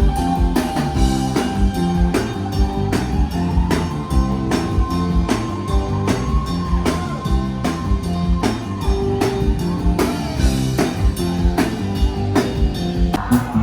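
Live rock band playing an instrumental passage: a drum kit keeps a steady beat over a stepping bass line, with one long held high note over it for the first half or more.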